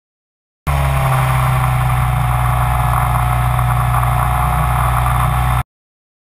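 Motors and propellers of a radio-controlled camera copter, heard through its onboard camera: a steady buzzing hum with a whine above it. It starts suddenly just under a second in and cuts off abruptly near the end.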